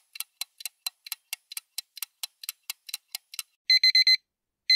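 Countdown timer sound effect: fast, even clock ticks, about five a second, for roughly three and a half seconds, then a digital alarm-clock beep as the timer reaches zero, a quick burst of four high beeps, with the next burst starting at the very end.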